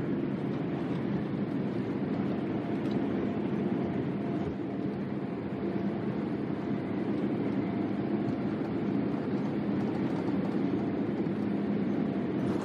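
Steady rumble of a Boeing 787-8's Rolls-Royce Trent 1000 turbofans heard inside the cabin as the airliner rolls along the runway, with a faint steady whine over it.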